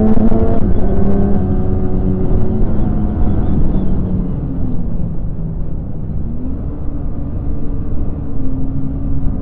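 Wind buffeting the mic of a motorcycle rider at highway speed, over the steady note of a Yamaha R15 V4's single-cylinder engine. The engine note sags in the middle, then rises sharply about six seconds in and holds steady.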